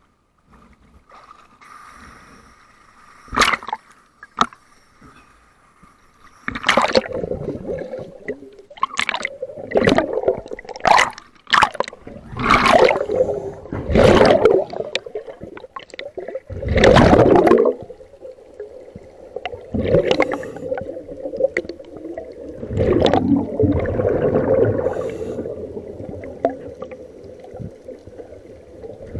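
Underwater bubbling and gurgling from a scuba diver's regulator exhaust, in irregular loud bursts that become more frequent and louder after the first few seconds.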